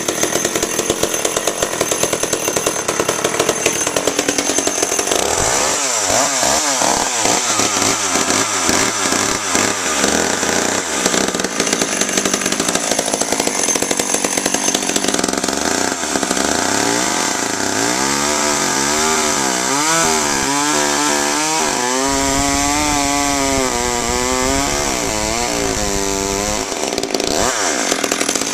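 Small antique Frontier chainsaw running and sawing through a hollow juniper log, its engine pitch rising and falling over and over as it revs and takes the load of the cut.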